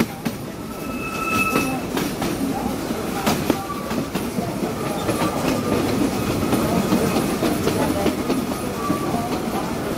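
Train ride on the narrow-gauge Frisco Silver Dollar Line, heard from aboard: a steady rolling rumble with scattered sharp clicks from the wheels over the track, and a few short wheel squeals.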